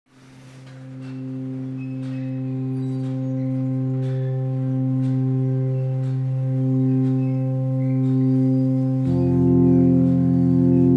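Background music: a sustained drone chord fading in from silence, with a deeper chord joining about nine seconds in.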